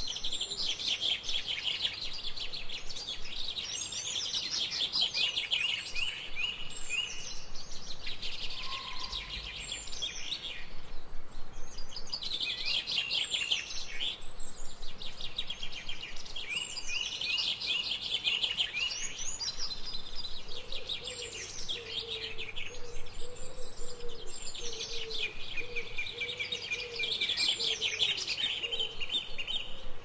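Songbirds singing: fast, trilled song phrases repeat every few seconds, often overlapping. In the second half a lower call repeats in a steady series beneath them.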